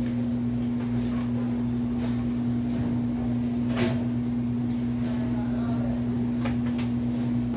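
Steady low electrical hum, with a few knocks and rustles of packaged goods being lifted and moved about.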